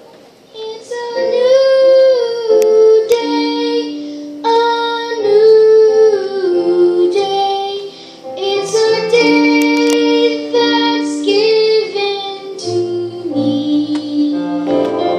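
Children's choir singing sustained, phrased lines, with a lower part joining near the end.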